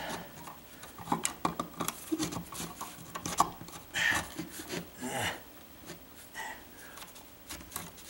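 Plastic electrical junction box being wiggled and rocked with pliers in its drywall opening: irregular scraping and rubbing of plastic against sheetrock, with scattered small clicks from the pliers and box.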